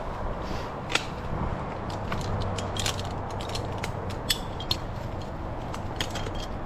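Climbing and rigging hardware being handled: irregular sharp clicks and light knocks over a steady low background hum.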